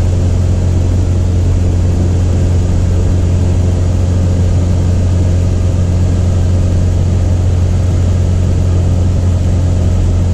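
Single-engine Cessna's piston engine and propeller running steadily, heard inside the cabin: a loud low hum holding one pitch, with no change in power.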